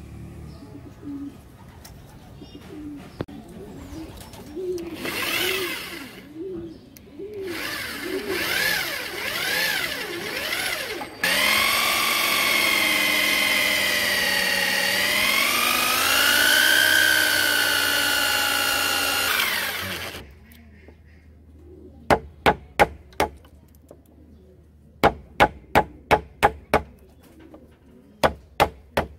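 Electric drill with a hole saw boring into a thick hardwood plank. It runs loud and steady for about nine seconds, its pitch sagging under the load and picking back up. Afterwards come sharp taps in quick groups of three to five as a steel rod is worked into the cut to break out the wood.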